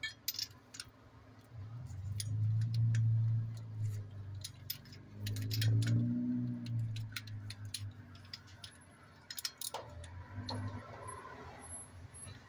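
Socket ratchet clicking in short, irregular runs while a spark plug is worked loose. Two longer low droning sounds come about two and six seconds in.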